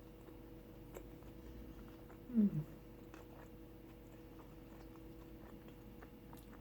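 Quiet eating: faint chewing and small clicks over a steady electrical hum, with one short vocal sound falling in pitch about two seconds in.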